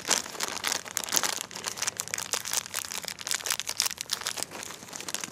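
Plastic packaging crinkling and rustling as it is handled, a dense run of sharp crackles that stops abruptly near the end.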